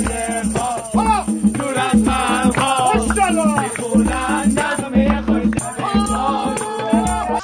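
Music: a sung melody over a pulsing bass beat, with shaker-like percussion hissing throughout, cut off abruptly at the end.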